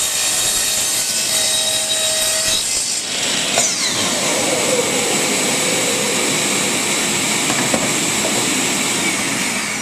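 Power miter saw running and cutting a teak block to square its end. A steady loud whine and rush of noise, with a falling whine about three and a half seconds in.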